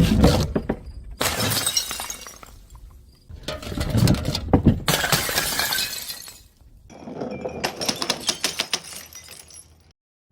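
Glass bottles shattering, several separate breaks one after another, each a burst of cracking glass and clinking shards, starting and stopping abruptly.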